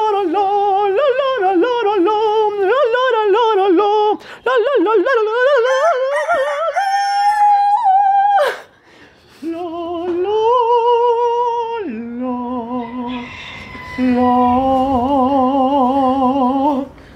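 A man singing a wordless 'lo, lo' melody in a high, warbling voice, as a homemade stand-in for background music. He pauses briefly about nine seconds in, then holds steadier notes near the end.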